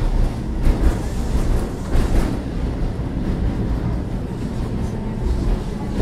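Tatra T3A tram in motion, heard from inside the passenger car: a steady low rumble of the running gear on the rails, with a few short knocks and clatters about one and two seconds in.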